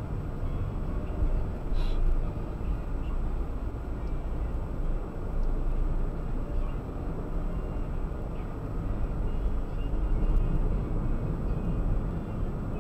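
Road and engine noise inside a moving car's cabin, picked up by a dashcam microphone: a steady low rumble, with a faint constant high tone above it.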